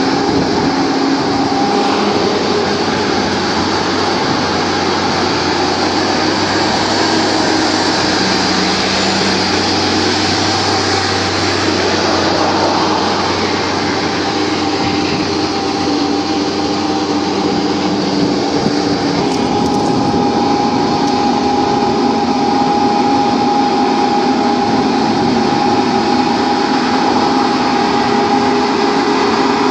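Farm tractor's diesel engine running steadily under load while its rear rotary tiller churns mud and water in a flooded paddy field.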